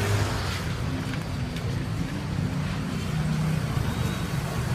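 Steady street traffic noise: a continuous low hum of vehicle engines from the road.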